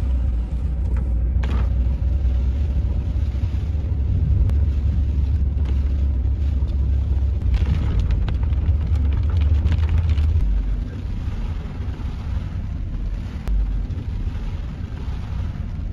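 Typhoon wind and heavy rain battering a moving car, heard from inside the cabin: a deep, steady rumble under a hiss of rain on the windscreen, easing down about ten and a half seconds in.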